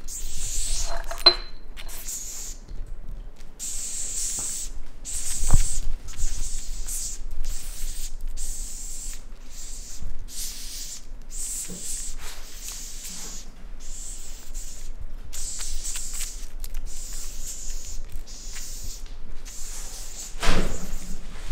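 Madagascar hissing cockroach hissing in short repeated bursts, roughly one or two a second, as it is handled by a raccoon. A sharp knock comes about five and a half seconds in, and a louder scuffing burst near the end.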